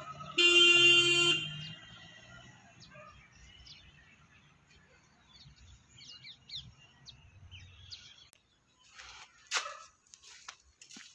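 A car horn beeps once, about a second long, as the Maruti Suzuki Swift pulls away. Faint bird chirps follow, and a few short noisy sounds come near the end.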